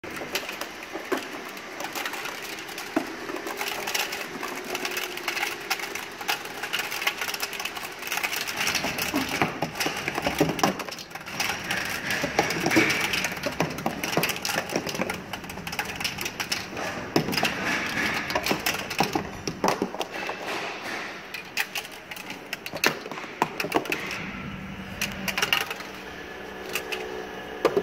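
Rotary-roller parts/sprue separator running, with small plastic moulded parts and sprues clattering and clicking continuously as they tumble over the turning rollers.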